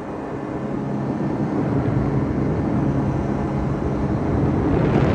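Powered paraglider's rear-mounted engine running in flight, mixed with heavy wind rush on the microphone; it grows louder about two seconds in.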